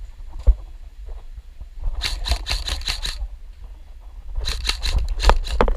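Airsoft guns firing two rapid bursts, about two seconds in and again near the end, each a quick run of sharp clicks, over a low rumble of wind or handling on the microphone.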